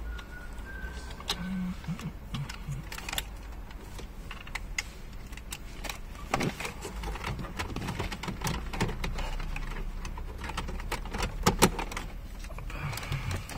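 Irregular plastic clicks and knocks from a BMW 135i's centre-stack climate and radio control panel being plugged in and pushed back into the dashboard, with a loud sharp snap near the end as it seats.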